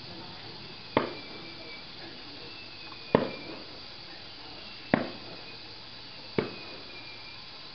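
Fireworks shells bursting: four sharp bangs about one and a half to two seconds apart, each trailing off in a short echo, with faint high whistles falling slightly in pitch between them.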